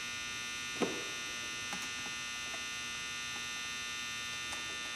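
A steady electrical buzz and hum, with a single light knock about a second in and a few faint ticks. The knock and ticks come from a screwdriver and the metal body of a Marvel Schebler carburetor as the main jet is screwed in until it bottoms out.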